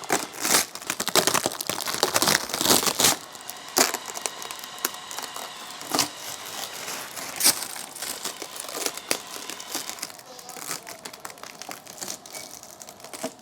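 Plastic packaging crinkling and rustling as it is handled and pulled off during unboxing, with irregular crackles and a few sharper snaps, busiest in the first three seconds.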